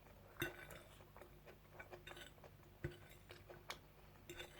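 Faint chewing and soft mouth clicks of someone eating, with a few sharper clicks, the loudest about half a second in and just before three seconds.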